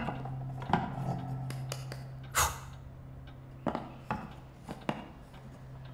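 A barber getting ready to shave: a few light clicks and knocks of tools being handled, and one louder swish about two and a half seconds in, over a low steady hum.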